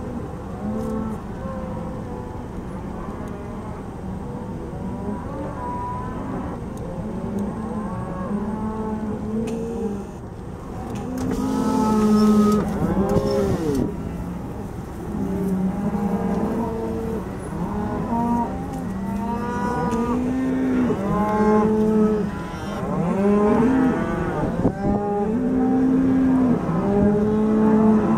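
A herd of cattle, cows and calves, mooing continuously, many calls overlapping one another. The mooing grows louder and more frequent in the second half.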